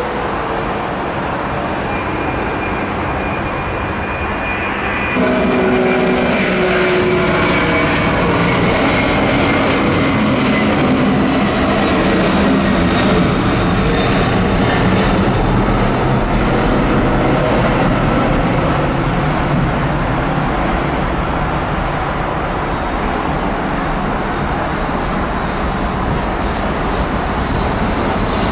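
Boeing 747-400 freighter's four jet engines: steady jet noise that grows sharply louder about five seconds in as the engines spool up to takeoff thrust, with a high whine slowly falling in pitch, then a steady loud roar through the takeoff roll and climb-out.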